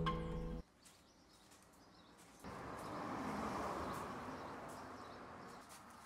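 A strummed acoustic guitar chord rings and cuts off abruptly under a second in; after a short silence, a steady outdoor background hum comes in, with faint bird chirps.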